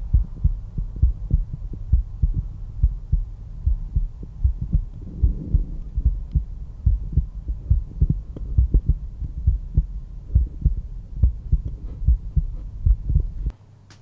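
Normal resting adult heartbeat heard through a stethoscope over the mitral area at the apex: a steady train of low lub-dub beats made by the heart valves closing. The beats cut off suddenly shortly before the end.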